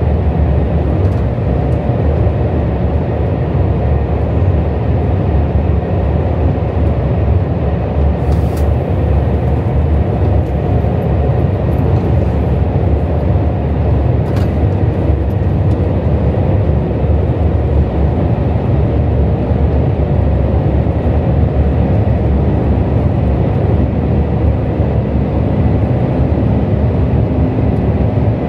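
KTX high-speed train running at speed, heard from inside the passenger car: a steady low rumble with a faint high whine, and a couple of light clicks.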